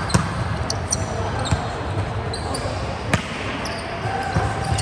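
Volleyball game on a sports-hall court: sneakers squeak briefly and often on the floor, and two sharp ball hits land, one just after the start and one about three seconds in, over a bed of background voices.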